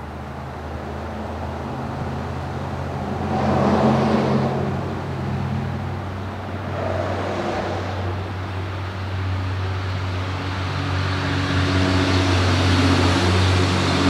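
A motor vehicle's engine runs with a steady low hum. Wider traffic-like noise swells around four seconds in, again around seven seconds, and builds toward the end.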